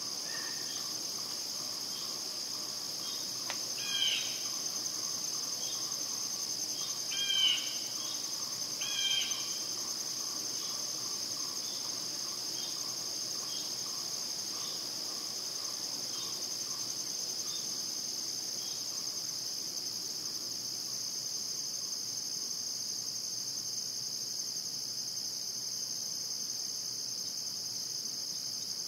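Steady, high-pitched chorus of insects trilling without a break. A bird gives three short calls in the first ten seconds, louder than the chorus.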